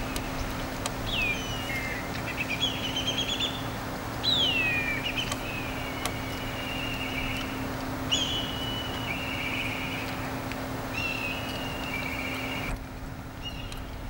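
Rainbow bee-eater calling: a series of short rolling trills every second or two, several sliding down in pitch, the loudest about four seconds in. A steady low hum runs underneath.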